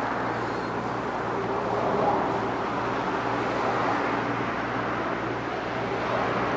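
Steady road-traffic noise: motor vehicles driving past, with a faint steady hum underneath.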